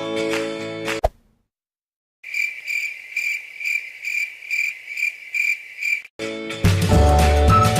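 Crickets chirping in a steady, even pulse about two and a half times a second, lasting about four seconds: the comedy 'awkward silence' sound effect. It is framed by a music clip that cuts off suddenly about a second in and another music clip with deep bass that starts near the end.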